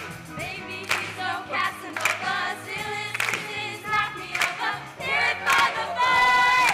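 A musical-theatre ensemble of mixed young voices singing together over a band accompaniment with a beat, ending on a long held note.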